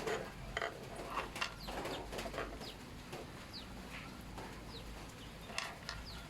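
Birds calling: scattered short chirps and clucks, some sliding down in pitch, mixed with a few sharp clicks over a steady low hum.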